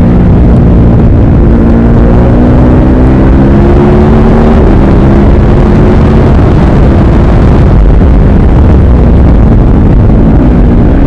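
Ducati Supersport S's 937 cc L-twin engine pulling under load, its pitch climbing slowly, under heavy wind buffeting on the helmet microphone that partly drowns it midway. Near the end the engine note drops.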